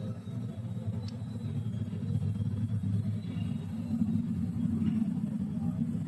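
Gasoline car engine running, with a steady low rumble from a worn belt tensioner bearing.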